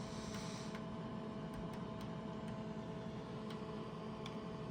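Steady low hum and thin whine of a running Tektronix 11403A digitizing oscilloscope, with a few faint, irregular clicks of its front-panel controls.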